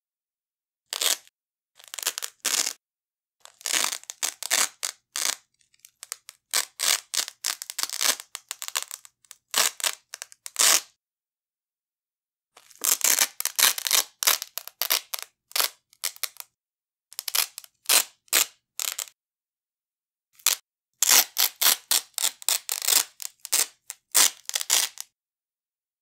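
Hook-and-loop (Velcro) strap being ripped off a wide Velcro strap: bursts of short crackling tears, several in quick succession, with silent pauses between the bursts.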